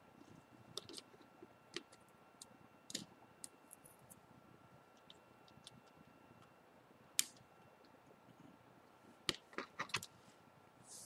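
Small, sharp plastic and metal clicks and taps of smartphone parts being handled and pressed into place as the motherboard is fitted into a new screen assembly. The clicks come irregularly, with a sharper one about seven seconds in and a quick run of several near the end.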